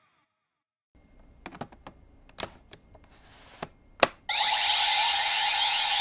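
A handful of sharp plastic clicks from the CSM Odin V-Buckle toy belt, the loudest about four seconds in, after which its speaker starts a loud, steady, high electronic ringing sound effect.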